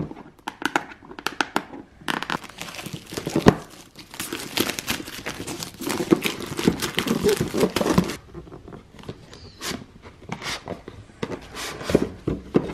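Clear plastic shrink-wrap being torn and crinkled off a cardboard speaker box: scattered crackles at first, a dense stretch of crackling from about two seconds in to about eight, then sparser taps and rubs as the box is handled.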